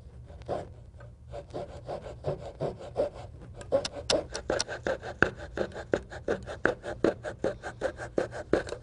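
Coping saw cutting through a balsa wood dragster blank in a steady run of quick back-and-forth strokes, which start about a second in.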